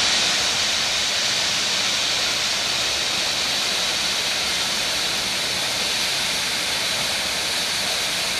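Steam locomotive standing at a platform, letting off a loud, steady hiss of steam.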